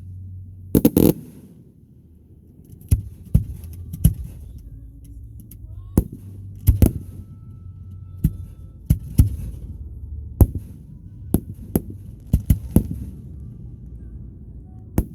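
Fireworks going off: a long run of sharp bangs at uneven intervals, some coming in quick clusters of two or three, over a steady low rumble.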